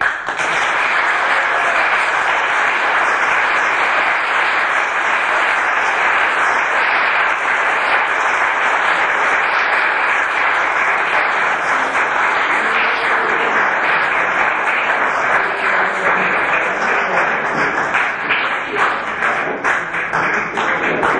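Audience applauding steadily after a violin piece; near the end the clapping thins into separate claps.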